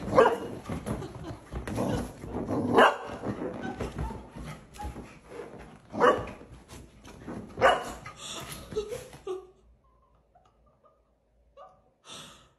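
Golden retriever puppy barking, four loud sharp barks spread over the first eight seconds.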